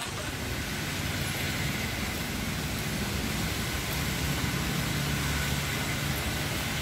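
Heavy rain on a city street: a steady hiss of rain and wet-road noise, with the low hum of motor traffic.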